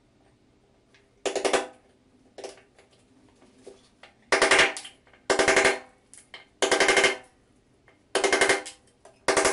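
Hammer striking a steel chisel into prefinished parquet floorboards in about six quick runs of taps, each with a metallic ring. The chisel is driven in at a shallow angle to dig under and split out the boards being removed.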